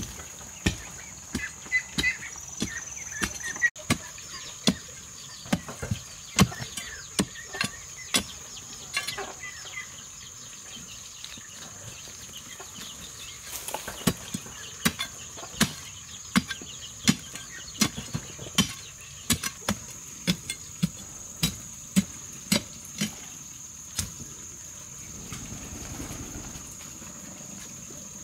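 A short-handled hoe chopping into dry, stony soil while digging a hole: a steady run of sharp strikes, about one to one and a half a second, with a pause of a few seconds in the middle. A steady high-pitched buzz runs underneath.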